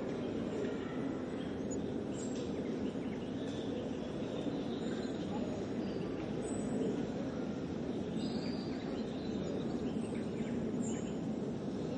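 Steady outdoor ambience, a low even rush, with a few faint bird chirps.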